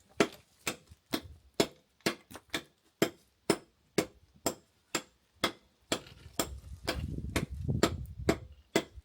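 Hammer and chisel chipping at a stone wall: sharp taps about twice a second, as old mortar and stones are worked loose. A low rumble joins in for a couple of seconds about six seconds in.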